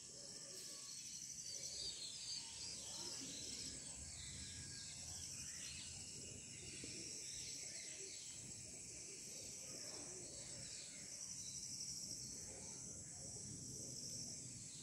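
Faint outdoor ambience: crickets chirping in a steady high-pitched chorus over a low background hum.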